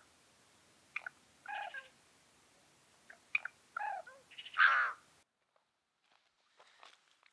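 Several short animal calls with a few sharp clicks between them. The loudest and longest call comes about four and a half seconds in, then the background hiss cuts off abruptly.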